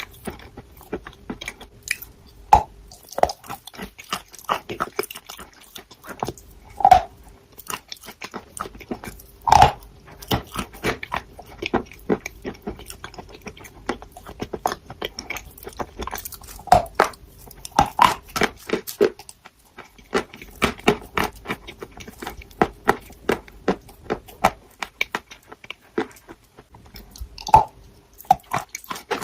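A person biting and chewing crunchy chalk: dense, irregular crackling crunches, with a handful of louder bites standing out.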